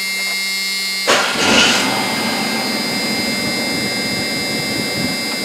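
Truck engine idling, heard from inside the cab: a steady hum with constant high whining tones, joined about a second in by a sudden, louder steady rush.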